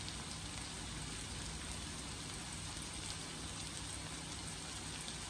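Diced red onion sizzling in oil in a wok, a steady, even sizzle.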